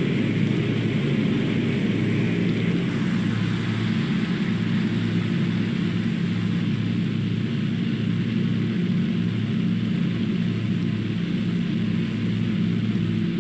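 Piston-engined propeller aircraft running steadily in flight, a constant low engine drone with no change in pitch.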